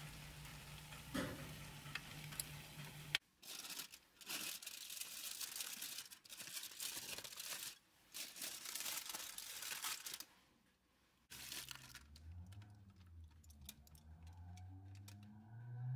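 Aluminium foil packets being picked up and unwrapped, crinkling and rustling in loud repeated bursts over several seconds, then scattered small clicks. Before that, a faint steady sizzling hiss from the hot baking tray.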